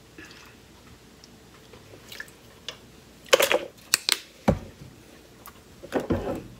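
Handling sounds over a stainless steel stockpot of thick barbecue sauce: a few light clicks, then a cluster of sharp knocks and clinks about three to four seconds in, and a low thump just after, as a spoon and a liquid smoke bottle are used at the pot. Near the end a wooden spoon starts stirring the sauce with a low rumbling scrape.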